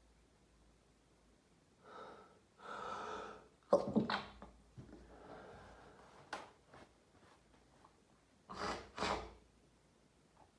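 A person's sneezing fit: a gasping in-breath, then a sharp sneeze just before four seconds in, followed by breathing and another close pair of bursts near the end.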